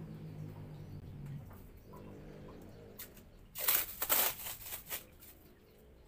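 Masking tape pulled off its roll in a quick run of loud tearing rips about three and a half seconds in, dying away over the next second. A low, steady hum sits under the first couple of seconds.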